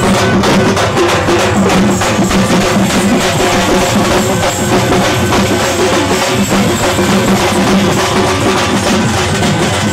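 A troupe of drummers beating large double-headed drums with sticks in a fast, dense, loud beat.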